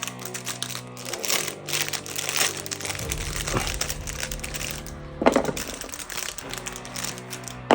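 Plastic packaging crinkling and rustling as toys are handled, over background music, with a louder knock about five seconds in and a sharp click near the end.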